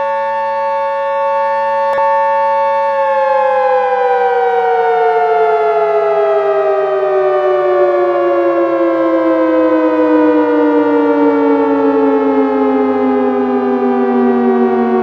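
Emergency-alert siren tone: a held multi-tone note that stays steady for about three seconds, then slides slowly and evenly down in pitch, like a siren winding down, for the rest of the time.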